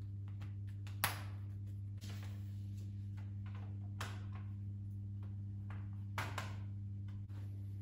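Sharp plastic clicks and taps from Nanoleaf Elements hexagon light panels being handled and pressed onto a wall mount: one loud click about a second in, a softer one later, and two quick ones near the end, over a steady low hum.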